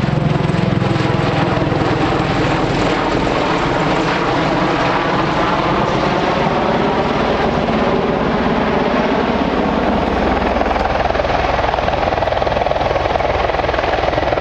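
Bell Boeing MV-22 Osprey tiltrotor's proprotors and Rolls-Royce turboshaft engines running with a loud, steady drone whose pitch drifts slowly.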